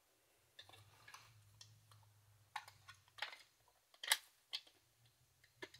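Faint, scattered clicks and light knocks of plastic parts being worked into place on an airsoft M4, as a handguard piece is fitted into its slot and pushed down.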